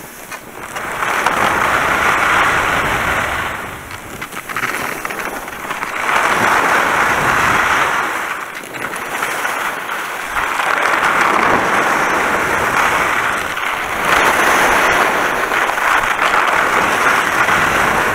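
Skis scraping and hissing over snow through a series of turns, swelling and fading about four times, once with each turn.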